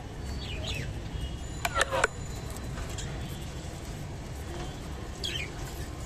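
Budgerigars giving short, high chirps that fall quickly in pitch, with a few sharp, louder clicks about two seconds in, over a steady low hum.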